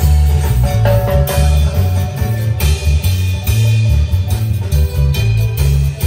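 Live marimba band playing an instrumental passage: a heavy, pulsing bass line and drum kit under a melody, with no singing.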